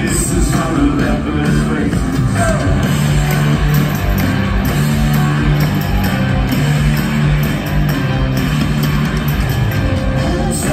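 Live rock band playing through a large arena PA: drumbeat, bass line and electric guitar, with a vocal on top, recorded from within the crowd.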